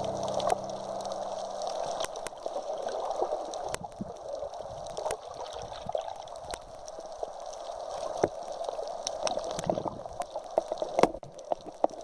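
Water gurgling and washing as a steady hiss, with many small sharp clicks and ticks scattered through it.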